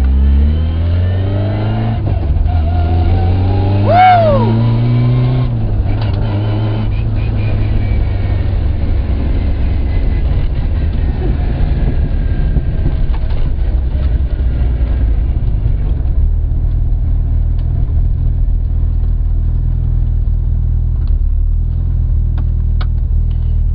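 Rally car engine accelerating, its revs rising over the first few seconds, then running at steady revs with a low rumble and road noise. A short rising-and-falling squeal about four seconds in.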